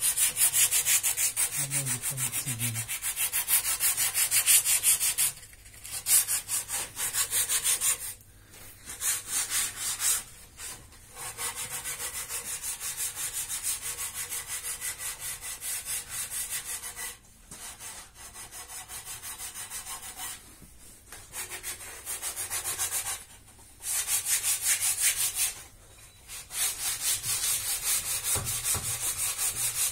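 Sandpaper rubbed by hand over the pine wood of a bed frame, in quick back-and-forth strokes with several short pauses.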